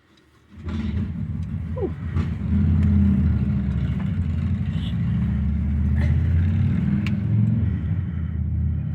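A motor vehicle's engine running steadily, cutting in suddenly about half a second in.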